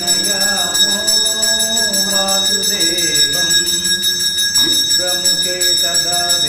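Temple bell ringing continuously during an aarti lamp offering, its high ringing tones held steady throughout, while a man chants a Sanskrit hymn over it.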